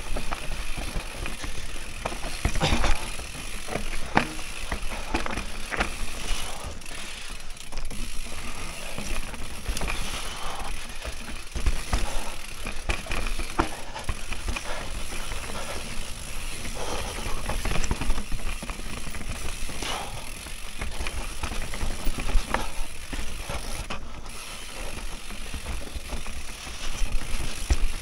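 Mountain bike, a Mondraker Raze, riding fast down a dirt forest trail: tyres rolling over dirt and roots, with the chain and frame rattling and frequent knocks as it hits bumps.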